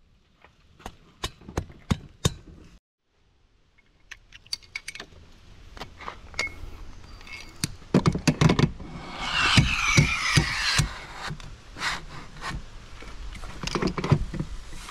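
Camp gear being handled: a series of sharp clicks and knocks, a short break about three seconds in, then more clacking as a telescoping ladder is extended and set against the car. A louder scraping stretch comes near the middle.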